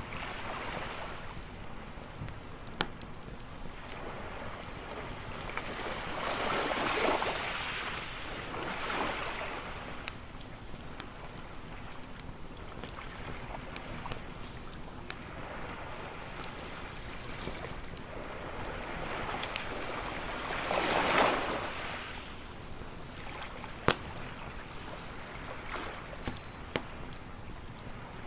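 Sea waves washing onto a shore in a few slow swells, the biggest about three-quarters through, over the steady hiss and scattered sharp pops of a crackling wood campfire.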